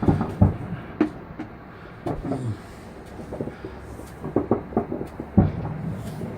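Fireworks going off: a run of sharp bangs and deeper thuds at irregular intervals, the loudest near the start and about five seconds in.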